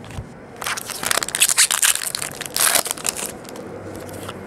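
Wrapper of a 2012 Topps baseball card pack crinkling and tearing as it is ripped open, a dense run of crackling that starts about half a second in and stops about three seconds in.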